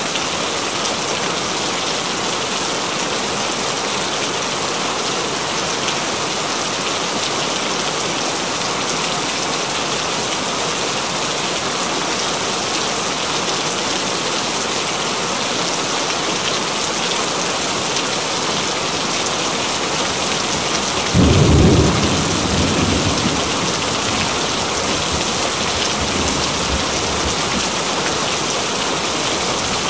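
Steady, continuous heavy rain hiss. About two-thirds of the way through, a sudden low rumble breaks in, loudest for about a second and then fading out over the next two.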